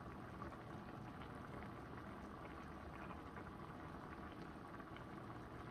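Skillet of soaked crumbled pecans, onions and peppers cooking on the stove: a faint, steady bubbling sizzle with small pops.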